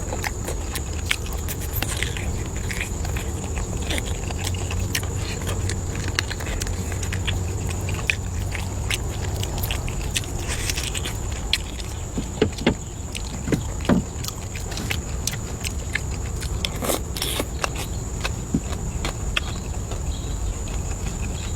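Eating sounds: scattered sharp clicks and smacks of someone biting and chewing food, over a steady low rumble and a constant thin high-pitched tone.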